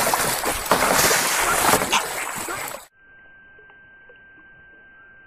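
Loud splashing water and noise around a kayak, with scattered sharp knocks. It cuts off abruptly about three seconds in, leaving only a faint steady high-pitched tone over hiss.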